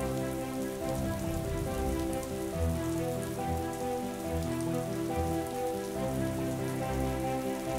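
Steady rain falling, with slow, sustained music chords and low swells under it.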